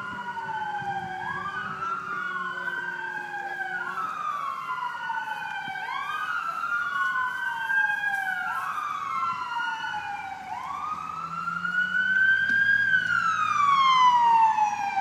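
Two or more emergency vehicle sirens wailing at once, their rising-and-falling cycles overlapping, growing louder in the last few seconds as they draw nearer.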